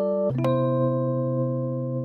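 Background music: a keyboard chord struck about a third of a second in and left to ring, slowly fading.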